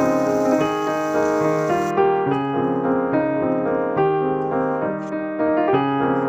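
Background piano music, a simple melody of held notes changing about once a second.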